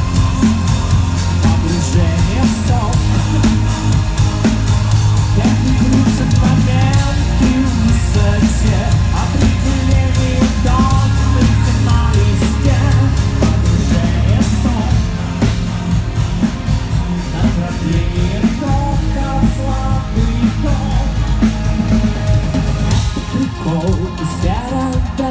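Rock band playing live at a soundcheck, with a sung vocal line over a heavy low end that eases somewhat about fifteen seconds in.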